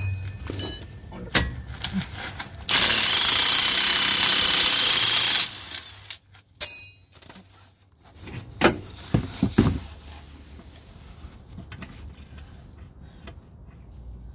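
Impact wrench running in one steady burst of about three seconds, undoing the drop link nut; a sharp ringing metallic clink of tools follows, then a few knocks.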